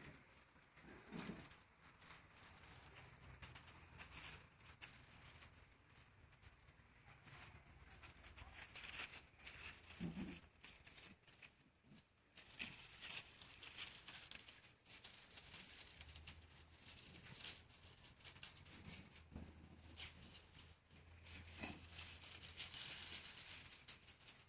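Dogs play-fighting: faint, irregular scuffling and rustling with soft pattering.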